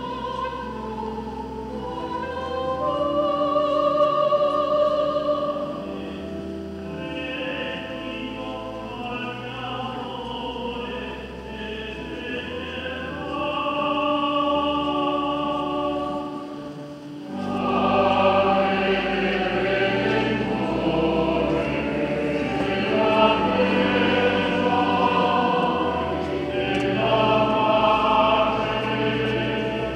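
Church choir singing a sacred hymn in long held notes, with a brief drop a little past halfway, after which the singing comes back louder and fuller.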